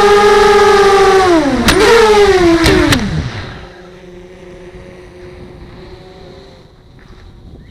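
The electric motors and propellers of an FPV racing quadcopter whine loudly, heard from on board. About a second and a half in, the pitch drops and a few sharp knocks come as the quad hits the tarmac. The motors wind down to a stop, leaving only a faint hum and hiss.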